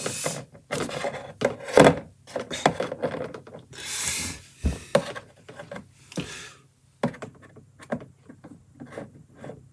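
Small toy figures being handled and stood back up on a hard surface: a string of light clicks and knocks, with a few brief rubbing swishes.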